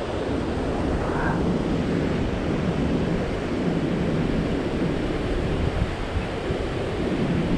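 Steady rushing noise of flowing river water, with wind on the microphone.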